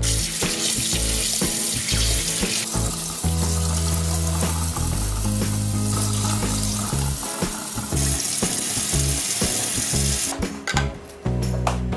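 Tap water running into a stainless steel sink as squid is rinsed by hand over a mesh strainer; the water stops about ten seconds in. Background music with a steady bass line plays underneath.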